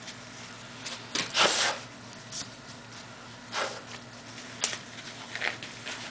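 Disposable gloves being pulled on: a few short rustling swishes, the loudest about a second and a half in, and a light snap about three-quarters of the way through, over a steady low electrical hum.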